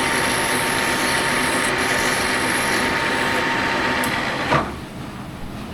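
A machine running steadily with a faint high whine, cutting off abruptly about four and a half seconds in with a short knock.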